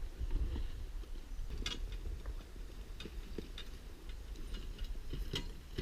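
A hiker walking out on a track: faint, irregular ticks and clicks of footsteps and carried gear over a low rumble of wind on the microphone.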